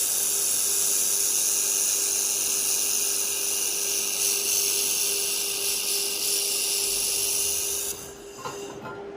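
1500 W handheld laser welder welding 3 mm stainless steel with wire feed: a steady high hiss that cuts off suddenly about eight seconds in. A steady low hum runs underneath throughout.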